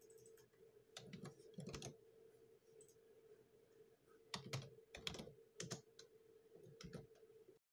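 Faint, scattered keystrokes on a computer keyboard: a few short clusters of clicks, then a few more about halfway through, over a faint steady hum.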